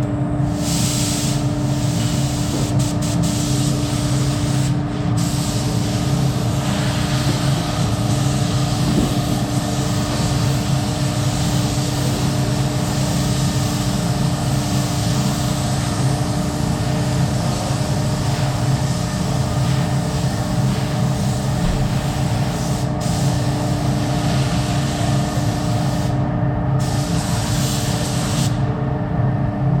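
Spray gun hissing as primer is sprayed on a car body panel, in long passes with short breaks, the longest break near the end. Under it runs a steady machine hum.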